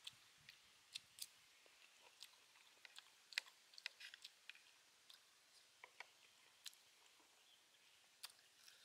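A person eating crispy deep-fried chicken feet: irregular sharp crunching clicks of biting and chewing, a dozen or so scattered, the loudest about three and a half seconds in.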